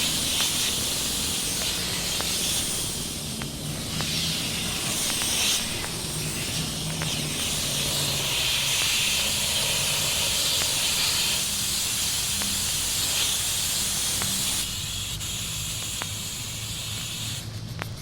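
A loud hiss of escaping gas that swells and eases several times over a low, steady mechanical hum. The hiss drops back late on and cuts off near the end.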